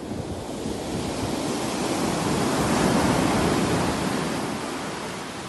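Ocean surf breaking and washing up a sandy beach: one wave's rush swells to its loudest about halfway through, then ebbs away.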